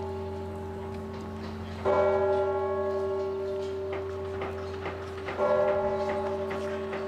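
Kremlin clock bell in the Spasskaya Tower tolling slowly: the same deep note is struck twice, about two and about five and a half seconds in, and each stroke rings on into the next.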